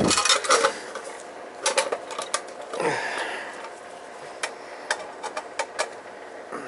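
Scattered light clicks and taps of hand tools and metal parts being handled while a boiler control is fitted, with a short falling scrape about three seconds in.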